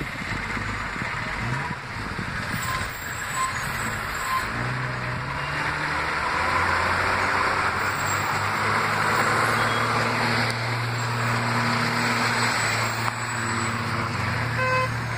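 City traffic noise and a diesel bus engine running steadily, heard from inside a bus. A few short high beeps sound about three to four seconds in, and a brief horn-like tone near the end.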